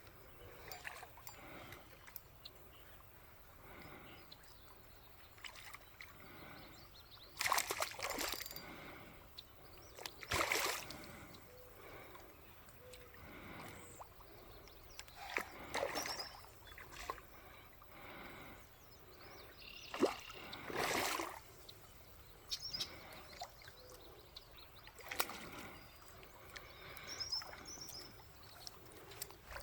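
Water splashing and sloshing in separate bursts every few seconds over a faint, steady trickle.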